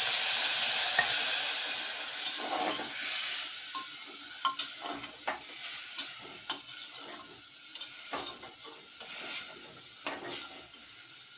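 Water poured into a pressure cooker over hot fried masala and chickpeas, sizzling loudly and dying down over the first few seconds. Then a ladle stirring the curry, clinking against the pot several times.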